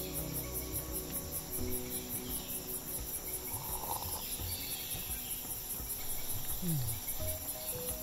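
Rainforest insect chorus: a steady, high-pitched pulsing trill of about three to four pulses a second.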